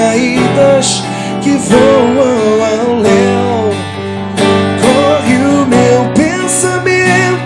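A man singing live into a microphone over a strummed acoustic guitar, the sung melody rising and falling in long held notes.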